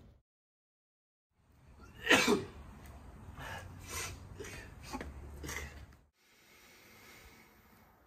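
A young man sneezes once, loudly, then coughs several times, the sounds of someone falling ill with a fever. A low steady hum runs under them and stops about six seconds in.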